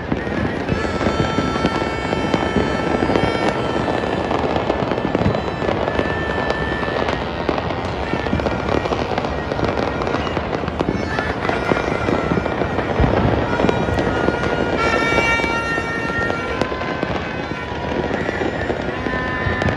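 Many fireworks and firecrackers going off at once, a dense, unbroken crackle of pops and bangs with no pause.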